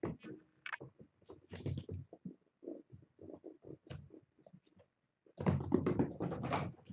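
Kittens scampering and playing: irregular scuffles, taps and thumps on the floor and a play mat, with a louder, denser burst of scuffling near the end.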